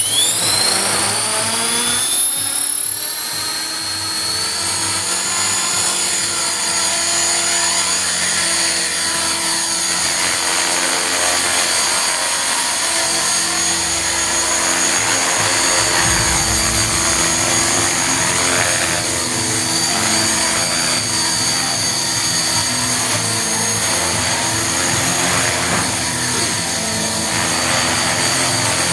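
Titan T-Rex 450 electric RC helicopter spooling up, its motor and rotor whine rising in pitch over the first couple of seconds, then holding a steady high whine as it hovers and flies.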